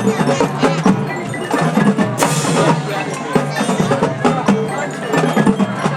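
High school marching band playing, heavy on percussion, with mallet instruments and drum strikes and a loud crash about two seconds in.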